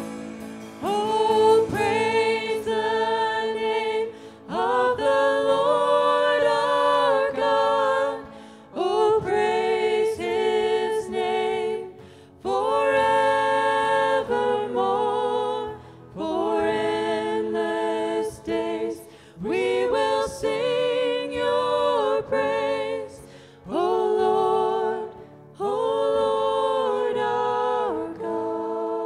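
A woman singing a slow contemporary worship song into a microphone, in sung phrases of a few seconds each with short breaths between, over a soft acoustic guitar.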